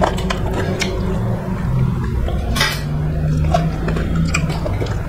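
Close-miked eating sounds: chewing and mouth noises while rice and curry are eaten by hand, with many small clicks of fingers and food against plates and bowls. One louder, brief noisy sound comes about halfway through.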